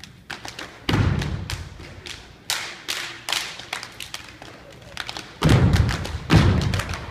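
Dance routine stomps and landings on a floor: heavy thuds about a second in and twice more near the end, with lighter quick taps between them and crowd voices underneath.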